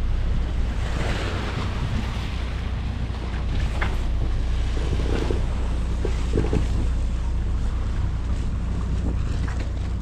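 Wind blowing across the microphone over the wash of the sea around a sailboat under way, with a steady low drone underneath.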